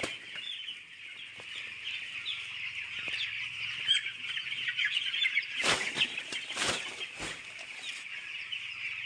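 A flock of broiler chicks peeping together as a dense, continuous chatter of high chirps. Three sharp knocks come in the second half.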